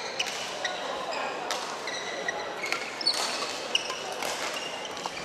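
Badminton rally in a large, echoing sports hall: several sharp racket hits on the shuttlecock and brief sneaker squeaks on the wooden court, over the noise of play on neighbouring courts.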